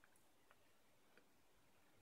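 Near silence, with three faint ticks in the first second and a half from metal tweezers picking and placing tiny 0603 surface-mount resistors on a solder-pasted circuit board.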